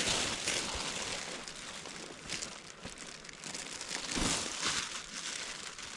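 Clear plastic sheet crinkling and rustling as it is pulled out and unfolded by hand. It is loudest at the start and again about four seconds in, softer in between.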